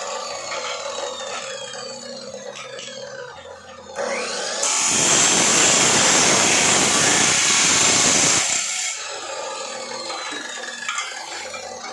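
A handheld power tool speeds up with a rising whine about four seconds in and cuts loudly for about four seconds. It then winds down with a falling whine.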